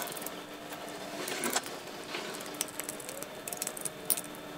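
Faint clicks and scrapes of fingers tightening small plastic nuts onto the finder scope bracket screws of a 60mm refractor telescope, with a few sharper clicks, the clearest about a second and a half in and again near the end, over a low steady hum.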